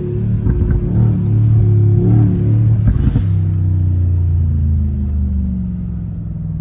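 Brabus G800's twin-turbo V8 with Brabus exhaust, heard from inside the cabin while driving, with a deep, loud engine note. From about halfway the note slowly drops in pitch and gets quieter as the car eases off, with a few sharp cracks along the way.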